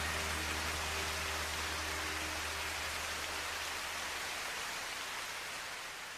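A steady rain-like hiss, with the last held low notes of the background music dying away in the first couple of seconds; the hiss then slowly fades out near the end.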